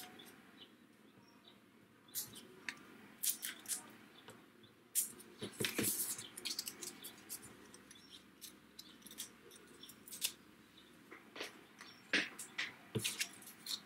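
Paper and a sheet of foam adhesive pads being handled and peeled on a craft table: scattered small crackles, taps and short rustles, with a longer rustle about five seconds in.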